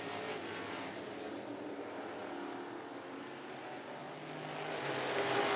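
Engines of a pack of classic-division dirt-track race cars running at speed through a turn. The sound swells louder near the end as the cars pass close by.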